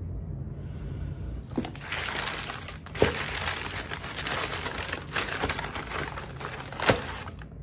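Crumpled brown kraft packing paper crinkling and rustling as it is pulled apart by hand. It starts about a second and a half in, with a few sharp crackles, the loudest about three seconds in and near the end.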